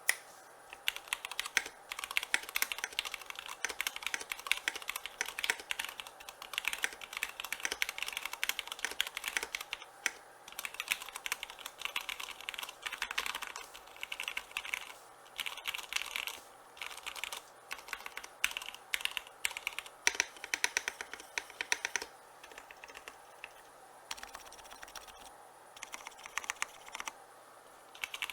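Typing on a Qwertykeys Neo65 mechanical keyboard with copper weight, Cherry MX Black linear switches and XMI keycaps: a fast clatter of keystrokes in runs, broken by short pauses.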